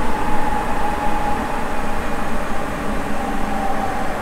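On-board running sound of a Sapporo Municipal Subway 9000-series rubber-tyred train on the Toho Line, heard inside the car: a steady loud rumble and hiss of the train running through the tunnel, with a whine that falls slowly in pitch as the train slows.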